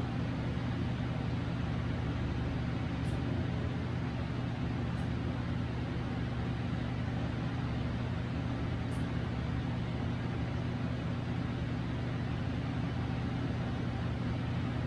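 Steady low mechanical hum of a running motor or machine, unchanging throughout, with two faint high clicks about six seconds apart.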